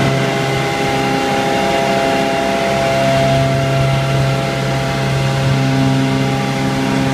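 A machine running steadily, a constant humming drone at an even pitch.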